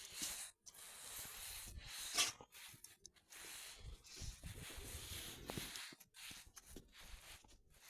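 A dog sniffing and breathing close to the microphone, in irregular breathy bursts, the loudest about two seconds in.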